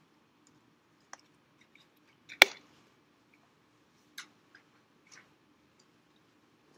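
A quiet room with a faint steady hum, a few small scattered clicks and one sharp knock about two and a half seconds in.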